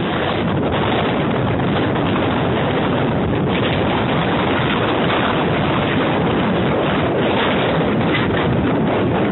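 Wind rushing over a camera microphone carried at a run: a loud, steady noise.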